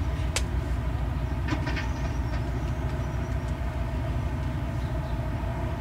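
Boat engine running with a steady low rumble and hum across the water. A single sharp click about half a second in.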